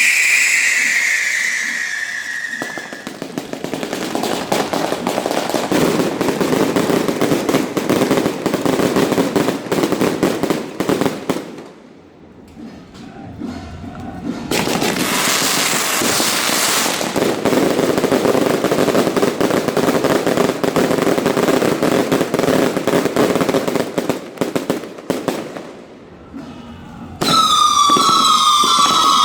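Daytime fireworks: strings of firecrackers crackling densely for long stretches, with a brief lull and a hissing burst in the middle. Whistling fireworks give falling whistles right at the start and again near the end.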